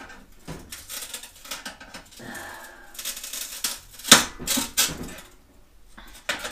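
A screwdriver clicking and scraping against the sheet-metal inside of an electric oven while working at a hidden fastening clip. The clicks come irregularly, and the loudest is about four seconds in, with two more close after it.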